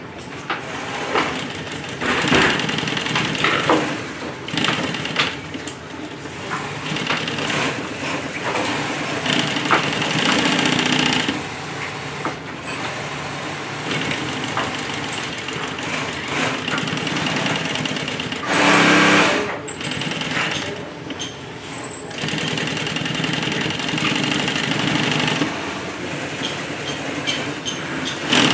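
Industrial sewing machine stitching nylon webbing onto heavy bag fabric, the needle chattering in short runs that start and stop as the strap is guided and turned, with one louder, faster run about two-thirds of the way in.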